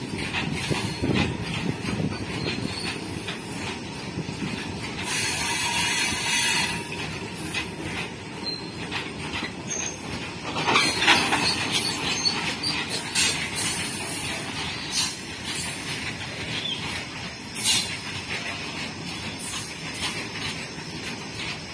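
Freight train of open-top box wagons rolling past: steady clatter of wheels over rail joints, with several bursts of high-pitched wheel squeal, the loudest about 11 seconds in and a short sharp one near the end.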